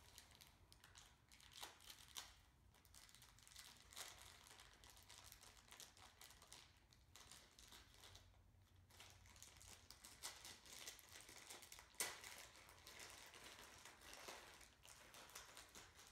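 Faint crinkling and rustling of clear plastic wrapping being handled, with scattered small clicks and taps; one sharper click about three quarters of the way through.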